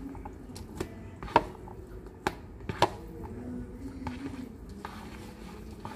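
A utensil tapping and scraping against a paper instant-noodle cup while noodles are stirred into their sauce: sharp, irregular clicks, the loudest about one and a half and three seconds in.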